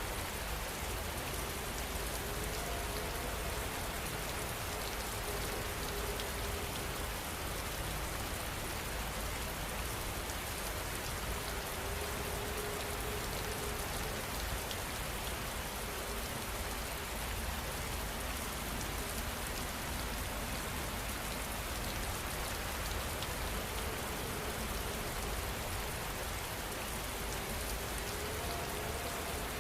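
Steady rain falling and pattering on a surface, an even hiss with no change in strength.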